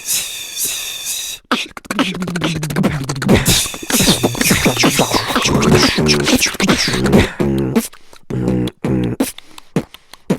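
Human mouth sounds in the style of beatboxing: rapid clicks and pops mixed with short pitched vocal tones, breaking into separate choppy bursts toward the end.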